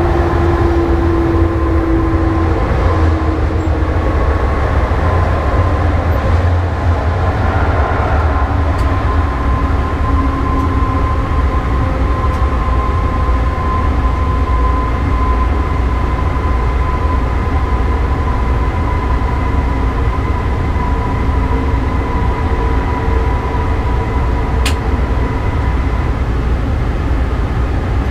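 Class 189 electric locomotive running, heard from inside its cab: a steady low rumble of wheels on track under the whine of the traction drive. Some of the whine tones slide down over the first ten seconds. A single sharp click comes near the end.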